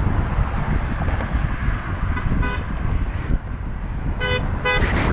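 A Nissan Murano's car horn honking from behind: one faint toot about halfway through, then two short toots in quick succession near the end. Steady wind noise on the microphone of the moving bicycle runs underneath.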